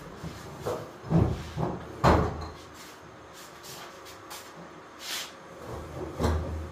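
Cupboard doors being opened and shut, with a run of wooden knocks and thuds: several close together in the first two seconds, the loudest about two seconds in, then two more near the end.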